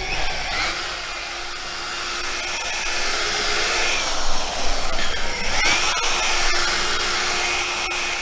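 Electric rotary polisher with a round buffing pad running steadily against a car door's painted panel: a steady motor whine whose pitch shifts briefly twice, about half a second in and near the middle.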